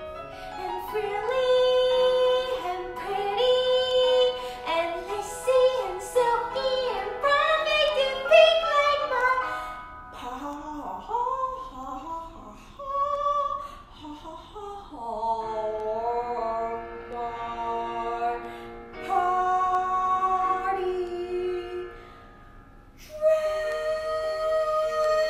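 A young girl singing a musical-theatre song in a bright, belted voice over a recorded accompaniment; after a short pause near the end she holds one long high note.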